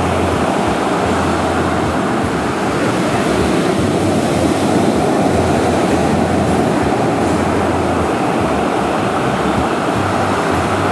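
Steady outdoor wind and surf noise at the beach, with a low rumble underneath that comes and goes.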